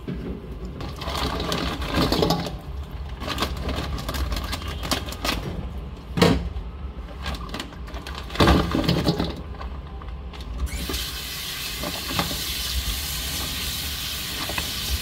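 Plastic bag crinkling and oyster shells knocking together as raw oysters are tipped from the bag into a bowl of water. About two-thirds of the way in, a kitchen tap starts running steadily into the bowl while the oysters are rubbed clean.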